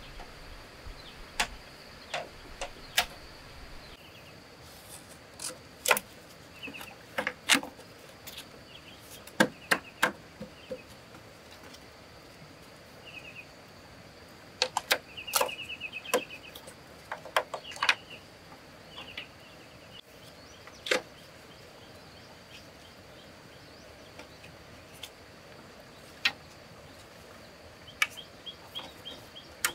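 Irregular sharp knocks and taps from hand work on wood or bamboo, some single and some in quick clusters, over a steady high insect drone with birds twittering now and then.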